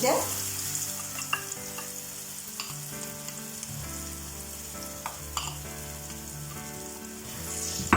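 Papaya paste sizzling in hot ghee in a kadai as it is stirred, with a few short clicks of the spoon against the pan. Soft background music with held notes plays underneath.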